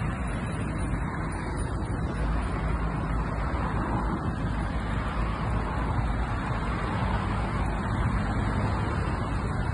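Steady low outdoor rumble with no distinct events, like distant road traffic.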